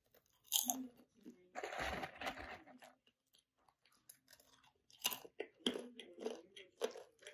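A person biting and crunching a crisp puffed-rice cracker (ppeongtwigi), in several bursts of crunching with a quiet pause of a couple of seconds in the middle.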